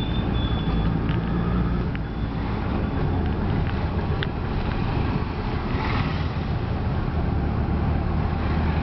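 Auto-rickshaw's small engine running steadily under way, heard from inside the open passenger cab, with road and wind noise and a couple of brief faint clicks.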